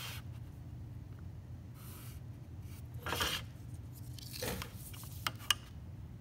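Faint scraping and rustling of a ruler slid across drawing paper and a plastic drafting triangle laid down on the sheet, with two light taps about five seconds in, over a steady low hum.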